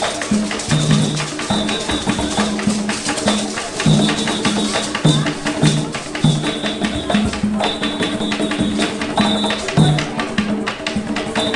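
Percussion ensemble playing tall hand drums in a fast, dense rhythm, with a repeating low two-note figure and short high notes over it.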